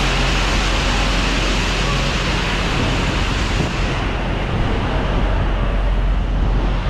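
Steady hiss and rush of high-pressure washer spray in a truck-wash bay, with a low engine rumble underneath. About four seconds in the hiss fades and the rumble is left.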